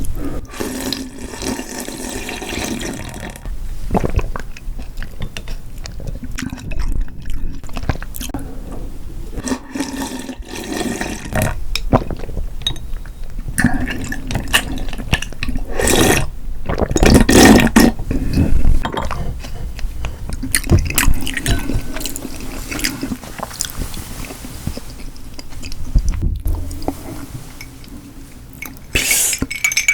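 Close-miked eating of sushi and cold buckwheat noodles: irregular wet chewing and slurping with liquid sounds, louder for a few seconds past the middle.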